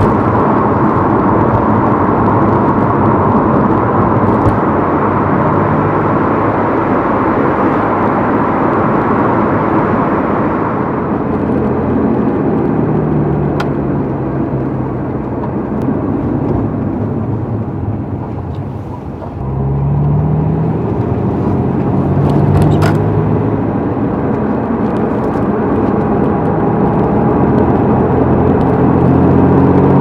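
A 1991 Honda NSX's 3.0-litre V6, fitted with a SPOON exhaust manifold and a titanium muffler, running steadily as the car is driven, with road noise beneath. The engine note steps in pitch with changes of speed and gear, drops off and goes quieter about two-thirds of the way through, then climbs again toward the end.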